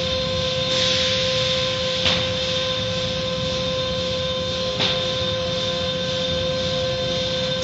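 Automatic car wash at work: the hanging cloth strips of an overhead mitter curtain swish and slap over a car's roof through spraying water, over a steady machine whine. Two sharper slaps come about two and about five seconds in.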